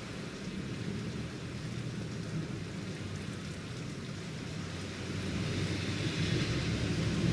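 Steady rain during a thunderstorm, with a low rumble of thunder underneath. Near the end the sound swells as a car drives past on the wet street, its tyres hissing.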